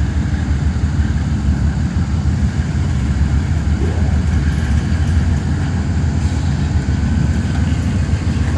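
Freight train passing, a steady loud low rumble.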